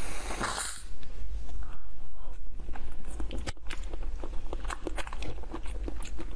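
Close-miked biting and chewing of a firm jelly candy topped with cream: a run of wet clicks and crackles. A hiss stops within the first second.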